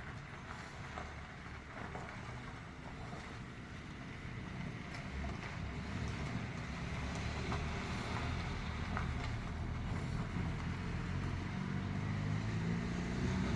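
A low engine rumble with wind-like noise, growing steadily louder as it approaches, with a steady droning pitch coming through near the end.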